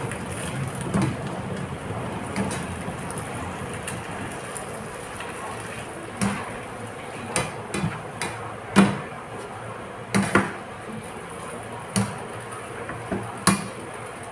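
Sweet potato leaves frying in hot oil in a nonstick pan, a steady sizzle, while a slotted spatula stirs them. In the second half the spatula knocks sharply against the pan about ten times, the loudest near the middle.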